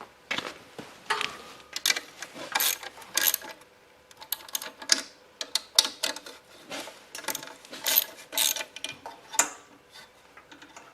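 Irregular metallic clicks and clinks of hand tools and parts being fitted back onto a Honda EM3000 generator during reassembly of its fuel system, with a light ratcheting, mechanical quality.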